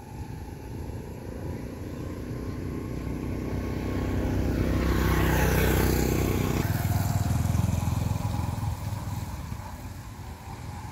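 A motor vehicle passing on the road, its engine growing louder over several seconds. About two-thirds of the way in its pitch drops as it goes by, and it fades away.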